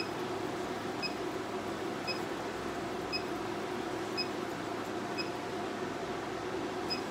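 Alma Lasers hair-removal machine beeping briefly about once a second as its handpiece fires pulses, over the steady hum of the unit's cooling fan.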